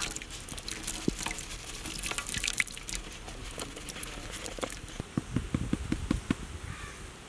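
Chopped red bell pepper dropped by hand into a large aluminium pan of beaten egg: many small pieces pattering and splashing into the liquid. About five seconds in comes a quick run of soft knocks as the last pieces are shaken off the plate.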